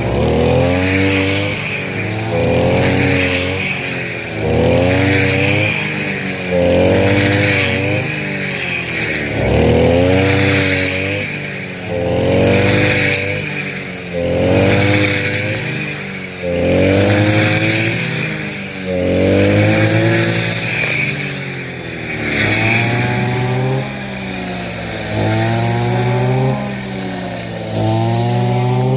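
A motor revving up and falling back again and again, about once every two seconds, in a steady rhythm.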